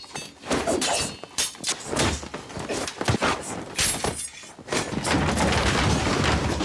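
Film sword-fight sound effects: a rapid string of blade clashes, thuds and crashes of breaking objects, some with shattering, with a short lull past the midpoint.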